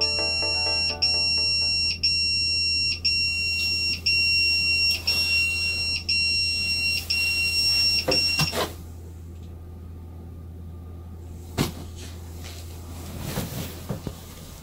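Pager alarm beeping high and fast, about two beeps a second, cut off abruptly about eight and a half seconds in when it is silenced. A sharp click follows a few seconds later, then a soft rustle.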